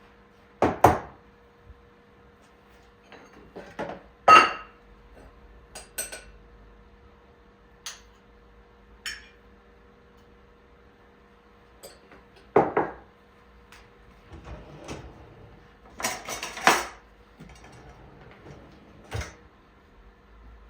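Kitchen dishes and utensils being handled: scattered sharp knocks and clinks, one ringing clink about four seconds in and a busier run of clatter near the end.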